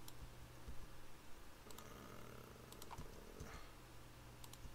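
Faint computer keyboard keystrokes: a few separate key presses in small clusters, about two seconds in, around three seconds and near the end, over a low steady hum.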